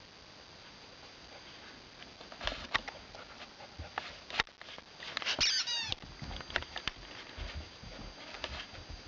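Australian Shepherd puppy scuffling and tapping at a squeaker toy football, with the toy's squeaker giving one short, wavering squeak about five and a half seconds in.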